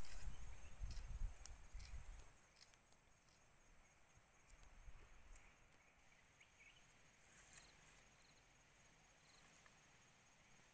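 Wind buffeting the microphone with a low rumble that dies away after about two seconds. After that it is faint outdoor quiet, with a steady high-pitched insect drone and a few scattered soft clicks.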